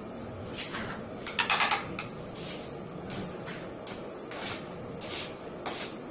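Stainless steel stair railing being handled: a few short metal rattles and scrapes, the loudest cluster about a second and a half in, over a steady low background.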